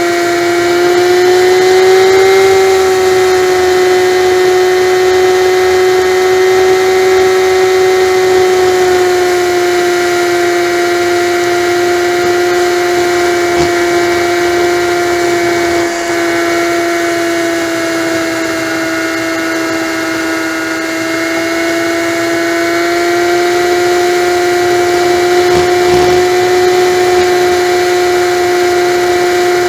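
Honda Magna's V4 motorcycle engine running steadily at highway cruising speed, heard as a loud, even whine that holds nearly one pitch, rising slightly about two seconds in.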